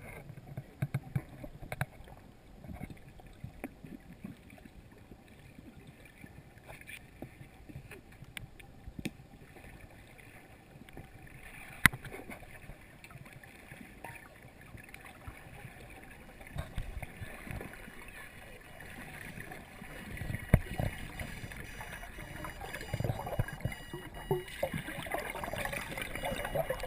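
Underwater sound picked up by a submerged camera in a lake: a low, muffled rumble with scattered clicks and knocks, one sharp click about halfway through. Near the end, bubbling grows louder as a diver's air bubbles rise past the camera.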